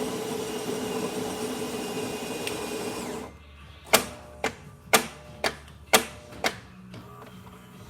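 Gaggia Titanium super-automatic espresso machine running a shot cycle: a steady motor hum that cuts off about three seconds in, then six sharp clicks, about two a second, alternating louder and softer.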